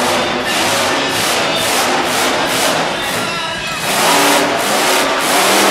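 A monster truck engine running, mixed with loud music over the PA with a steady beat and crowd noise.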